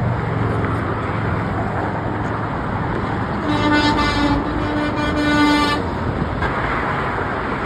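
Truck horn honking in one long blast of a little over two seconds, starting about three and a half seconds in, over steady freeway traffic noise.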